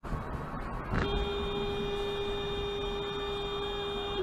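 A car horn held in one steady blast for about three seconds, starting with a click about a second in and cutting off near the end, over road noise in the cabin.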